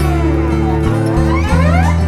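Background music with a steady bass line, overlaid by a sweeping tone that falls away early on and then climbs back up near the end.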